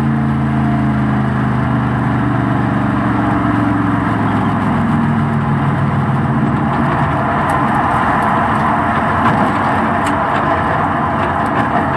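Stock car's V8 engine heard on board, running with an even tone at first that fades after a few seconds into a steady rush of road and wind noise as the car eases off and slows.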